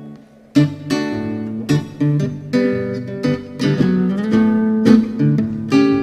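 Instrumental music played on a plucked guitar, notes sounding one after another, after a brief lull at the start.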